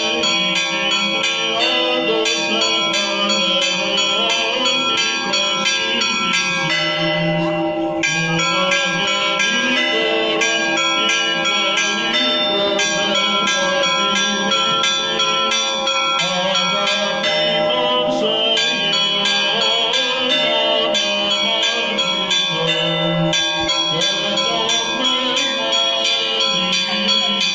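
Orthodox church bells ringing a rapid, continuous peal of quick overlapping strokes, each left ringing on: the festive peal of the Theophany Great Blessing of the Waters.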